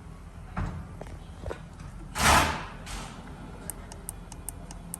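Car-cabin handling noises: a couple of light knocks, then one louder short thump about two seconds in, as the brake and accelerator pedals are held and let up during a service-light reset. Faint quick high ticks follow near the end.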